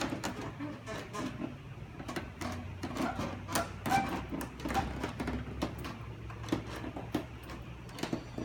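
Footsteps on a hard floor, about two a second, over a steady low hum.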